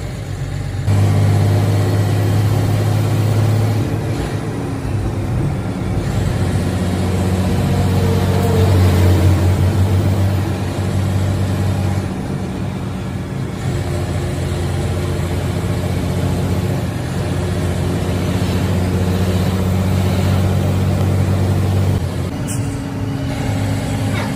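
Coach's engine running hard at highway speed, heard from inside the cab, a steady low drone with road noise; it grows louder between about six and ten seconds in, then eases.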